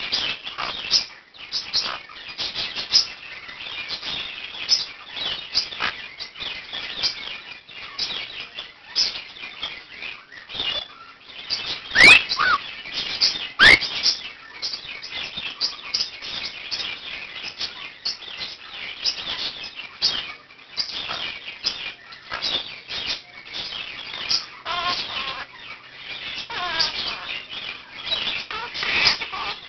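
A room of pet birds chirping and chattering without a break, among them a Quaker (monk) parakeet, with two loud, shrill, rising calls cutting through about twelve and fourteen seconds in.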